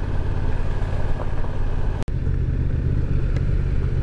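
Steady low engine and road noise of a vehicle driving along a muddy dirt road. The sound cuts out for an instant about halfway through.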